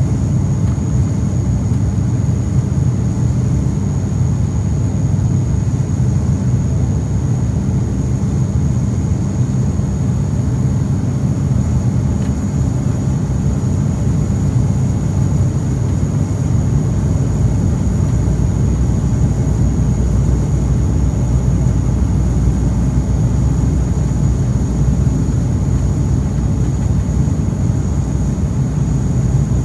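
Steady cabin drone of an ATR 72-500's Pratt & Whitney Canada PW127 turboprop engine and propeller in flight, heard from a seat beside the propeller: a loud, even low hum with a thin steady high whine over it.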